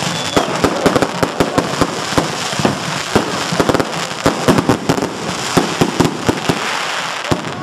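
Fireworks going off: a rapid, irregular string of bangs and crackling pops over a steady hiss.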